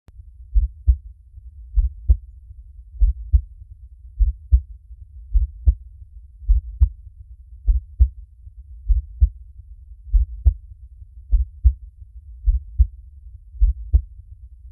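Heartbeat, beating slowly and steadily in paired lub-dub thumps about every 1.2 seconds, deep and low over a faint steady hum.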